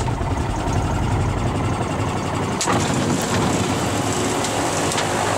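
Electric starter turning over one of the seaplane's Rotax 912 engines with the ignition off, a cold crank to circulate oil before starting. The churning cranking sound is steady and loud.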